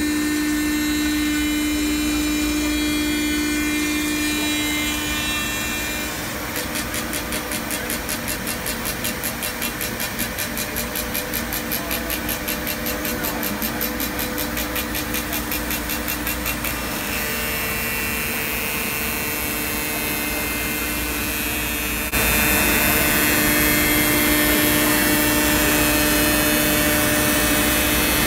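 MultiCam MG Series CNC router cutting sheet stock, its spindle running at 18,000 RPM and feeding at 120 inches per minute: steady machine noise with a high whine. A fast, regular pulsing comes in about six seconds in and stops around the middle, and the sound shifts abruptly to a louder level near the end.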